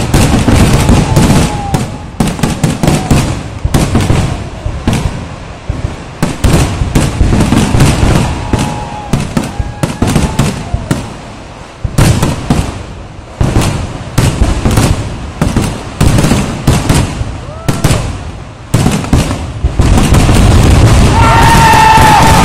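Aerial fireworks barrage: shells and crackers banging rapidly in dense succession, with short lulls about twelve and eighteen seconds in. Near the end a loud, held whistling tone sets in over the bangs.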